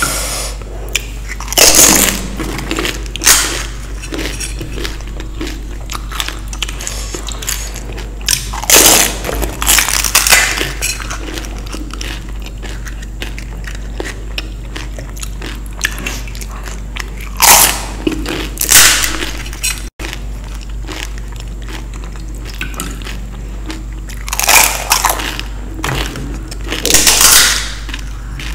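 Close-miked eating of crisp fried Indian street snacks: loud crunching bites come in pairs about every seven to eight seconds, with quieter chewing in between.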